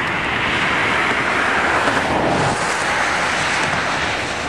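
Distant double-stack intermodal freight train rolling past, a steady roar that swells a little through the middle and eases off.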